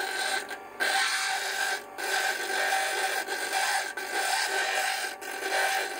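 Stone cabochon ground against the spinning, water-fed disc of a lapidary flat-lap machine: a steady rasping scrape over the machine's running hum, broken by a few brief dips, as the stone is angled and rolled to round its edge.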